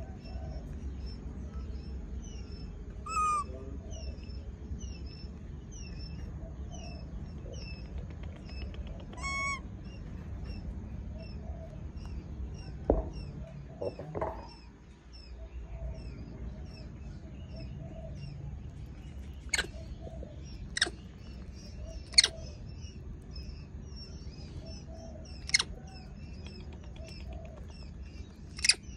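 Birds chirping repeatedly in the background, with two louder calls early on. Several sharp clicks in the second half are the loudest sounds.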